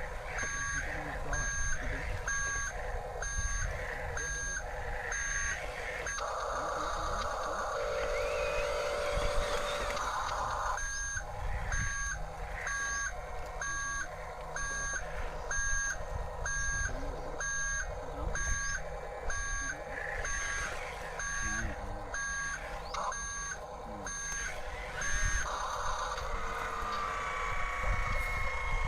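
Electronic reversing beeper of a toy RC construction vehicle, beeping about one and a half times a second in two runs, with a pause of several seconds between them.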